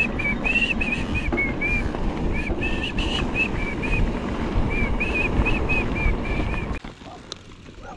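Electric mountain bike riding down a rough trail: steady rattling and wind noise, with short, high whistling squeals repeating throughout. The noise drops away sharply near the end.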